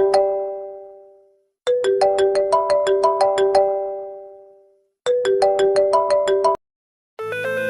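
Smartphone ringtone: a short melody of quick, bright notes plays twice, ringing out and fading each time, then starts a third time and is cut off abruptly. Near the end, after a brief gap, a different ringtone with a fuller sound and a bass line begins.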